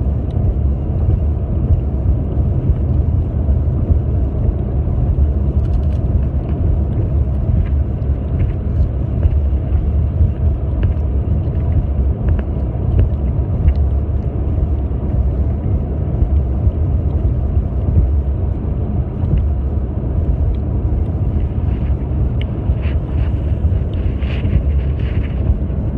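Steady low rumble of road and engine noise inside a moving car's cabin, with a few faint clicks, most of them near the end.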